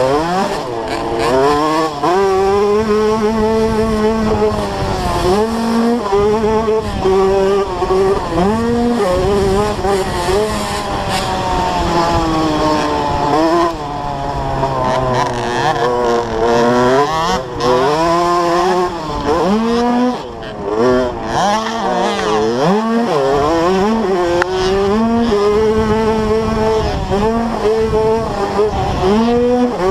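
KTM 65 SX's small single-cylinder two-stroke engine racing around a motocross track, its revs climbing and dropping again and again as the rider shifts and rolls on and off the throttle. Wind rushes over the helmet-mounted microphone throughout.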